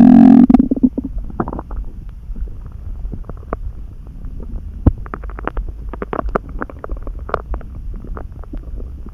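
Human stomach growling loudly, a pitched growl that ends about half a second in. It then breaks into many small gurgles and pops of gas and fluid moving through the gut, over a steady low rumble.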